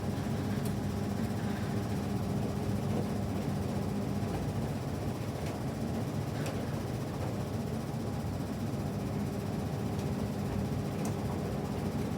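SANYO drum-type coin-laundry washing machine, about 1990 vintage, running its wash stage with the drum turning: a steady mechanical hum with a few faint ticks.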